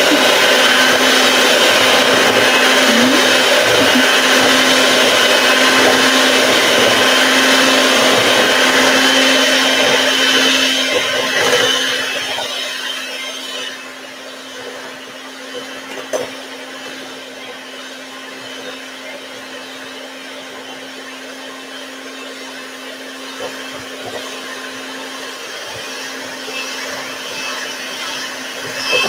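Electric hand mixer running steadily with a constant whine, its beaters creaming butter and brown sugar. About twelve seconds in it becomes noticeably quieter but keeps running.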